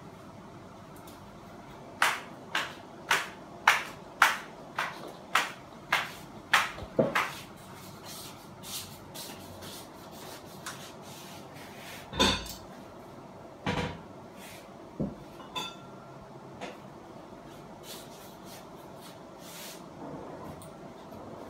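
A run of about ten sharp knocks, roughly two a second, followed by a few scattered knocks.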